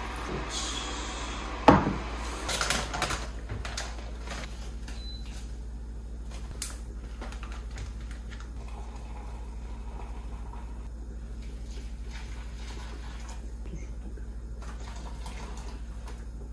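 Kitchen handling sounds over a steady low hum: a sharp knock a couple of seconds in, then a cluster of clicks and rustles of food packaging and containers, then only occasional faint clicks.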